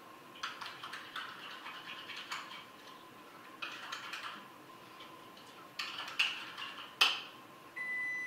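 A metal spoon stirring and scraping Greek yogurt with seasoning in a small ceramic cup, in several short bouts, with a sharp clack about seven seconds in. A short electronic beep sounds near the end.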